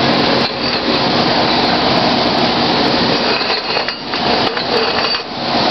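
Steady, loud crackling hiss of MIG/MAG welding arcs in a welding shop, dipping briefly a few times as arcs stop and restart.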